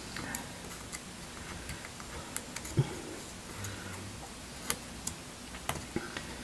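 Light, irregular clicks and taps of a plastic spudger against the battery and frame inside an opened iPhone SE (2020), working at the battery's adhesive tabs.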